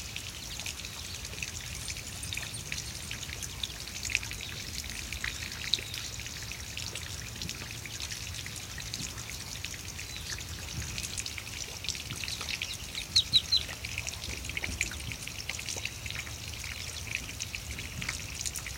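Muscovy ducklings peeping continually as they forage, with a quick run of four loud peeps about thirteen seconds in.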